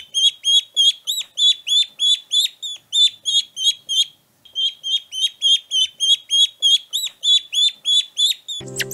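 A small bird chirping over and over, short downward-curving chirps at about four a second, with a brief pause midway. Music comes in near the end.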